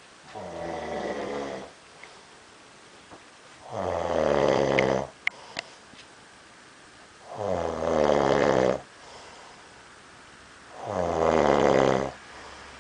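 A man snoring loudly in his sleep: four long snores, one every three to four seconds. Two sharp clicks come just after the second snore.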